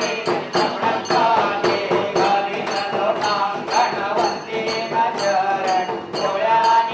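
A voice singing a melody over a steady beat of jingling hand percussion.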